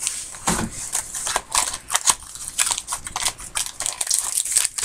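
Trading-card pack wrapper and cards handled in the hands: a run of crinkling and rustling, many short crackles close together.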